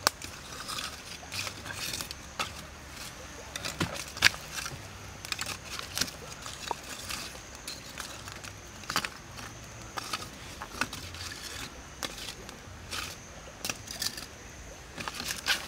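Lumps of charcoal clinking and knocking against each other as they are stacked by hand over a small twig fire, in irregular sharp clicks.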